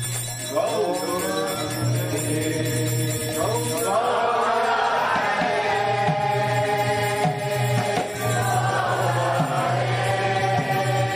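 Devotional chanting: voices singing a slow melodic chant, the pitch gliding and wavering from about half a second in, over a steady low hum.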